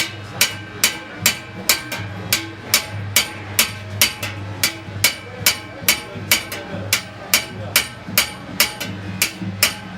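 Gnawa music: iron qraqeb castanets clacking in a steady, fast rhythm, about two to three sharp metallic clacks a second, over a low repeating bass line from a guembri.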